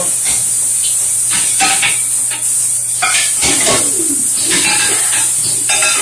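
Plates and dishes clattering irregularly as they are handled and stacked in a stainless-steel dish sink, over a steady high hiss.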